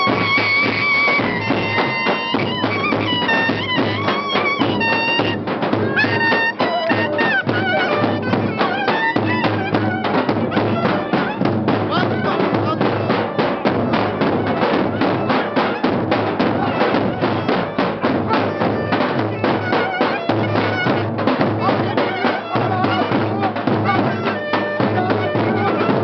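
Live folk wedding music: a clarinet playing a lively ornamented melody over a steady, fast drum beat.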